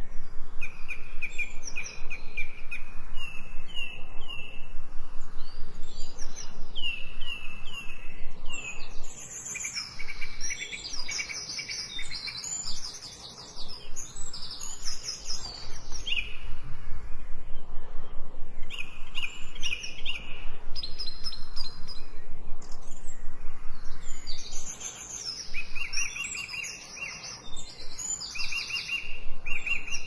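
Several songbirds singing at once: a chorus of chirps and quick runs of repeated notes, with a couple of short lulls.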